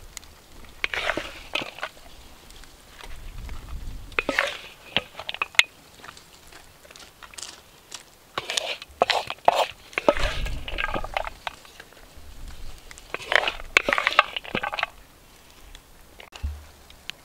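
Crunchy bites and chewing of crisp food, in four bursts of crackling crunches with short quieter pauses between them.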